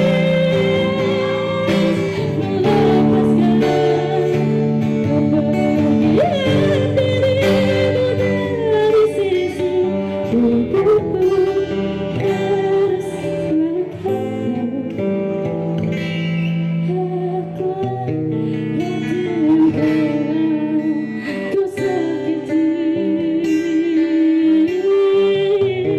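A young man singing a song into a microphone, accompanied by a strummed acoustic guitar. Near the end he holds a note with a fast, wavering vibrato.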